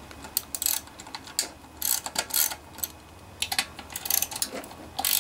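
Socket ratchet clicking in several short runs as the handle is swung back and forth, backing out the 10 mm valve cover bolts of a Honda GC160 engine.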